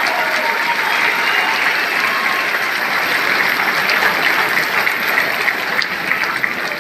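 Large seated audience applauding, a dense steady clatter of many hands clapping that eases slightly near the end.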